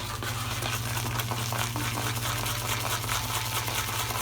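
Shaving brush whisked fast around a shaving bowl, whipping shaving cream into lather: a steady run of crackly, wet swishing.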